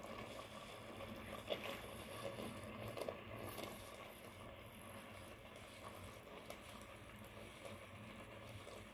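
Coconut-milk sauce with chunks of tuna simmering in a pot: a faint, steady bubbling with a few soft pops about one and a half and three seconds in.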